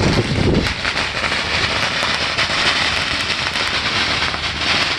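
Firecrackers popping in a rapid, dense crackle of many small bangs.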